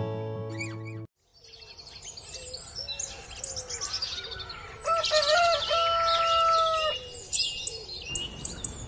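Guitar music cuts off about a second in; then small birds chirp and twitter, with one long held call lasting about two seconds around the middle, the loudest sound.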